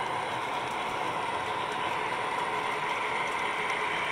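Two MTH O-gauge model Dash 8 diesel locomotives running along the track under heavy load, hauling 22 passenger cars; their motors, gears and wheels make a steady, even running noise.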